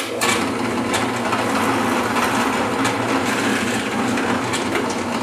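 Benchtop drill press running steadily, its thin twist bit boring entry holes through a square wooden blank covered in a taped paper pattern.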